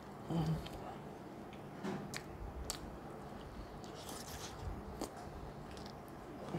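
A person biting into and chewing a pan-toasted sandwich, with faint, irregular crunches about every second.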